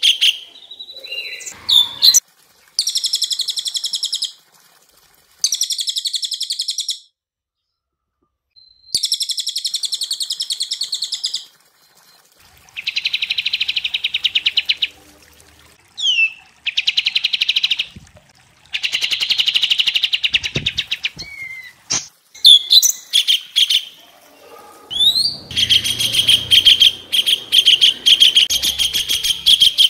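Songbirds from a masteran training track of cililin, kapas tembak and cucak cungkok calling. The calls are a series of rapid rattling trills, each about one to three seconds long with short gaps between them, plus a few quick whistled slurs. The trills run almost unbroken over the last few seconds.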